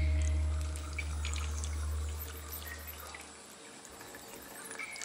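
Cave ambience of water drops dripping at irregular intervals, short clicks and plinks. A deep low drone fades away over the first three seconds or so.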